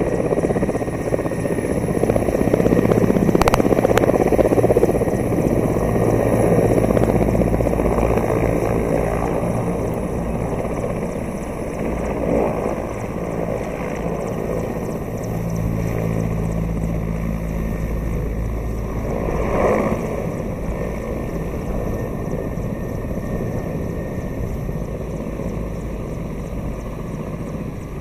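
Mi-17 helicopter's twin turboshaft engines and main rotor running steadily as it taxis off the runway to its parking spot after landing, gradually getting a little quieter.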